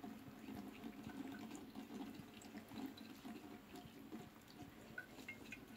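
Cat lapping a drink from a bowl: faint, quick wet licking clicks.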